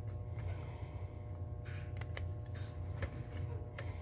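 A handful of small metallic clicks and ticks as fingers handle parts of a 1938 Western Electric 5H rotary telephone dial being disassembled, over a steady low background hum.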